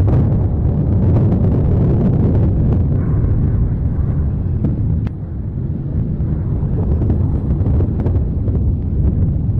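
Mount Etna's Voragine crater erupting: a continuous deep rumble with a few sharp cracks.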